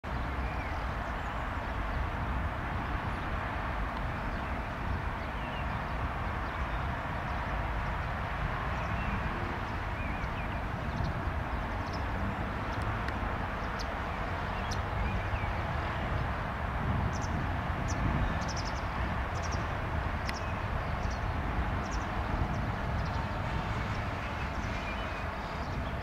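Steady outdoor background rumble and hiss, with a few faint high chirps and scattered light ticks.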